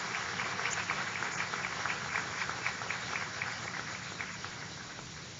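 Audience applauding, the claps thinning out and fading away.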